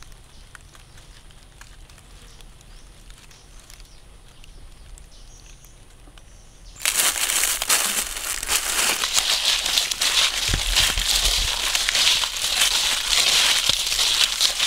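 Dry leaf litter crunching and crackling as it is handled and stepped on. The crackling starts suddenly about seven seconds in, after a faint background, and goes on as a dense run of small crackles.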